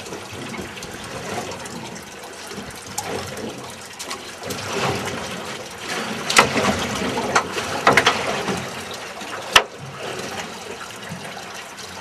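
Water sloshing and splashing against a boat's hull, with several sharp knocks and clicks through the middle, one especially sharp click a couple of seconds before the end.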